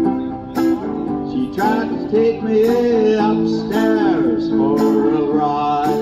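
Hollow-body archtop electric guitar playing an instrumental passage through an amplifier: chords struck about once a second, with sliding, bending notes over them from about two to five seconds in.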